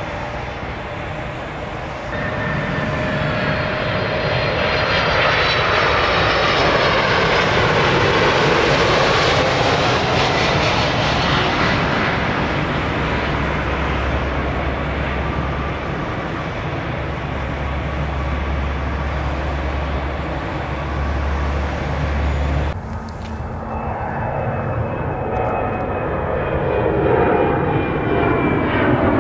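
Jet airliner's engines passing close by near the runway, the whine building and then falling in pitch as it goes past, with a car driving by in front. After a sudden cut, an Air Canada Embraer 190's turbofans during climb-out, their whine dropping in pitch near the end as it passes.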